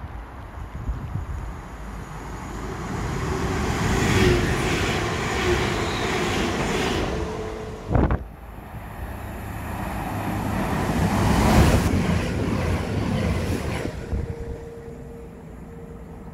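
A train passing through the station: the noise of wheels on the rails and rushing air builds up and fades away. About halfway there is a sudden break, and then a second passing train rises and fades. Wind buffets the microphone throughout.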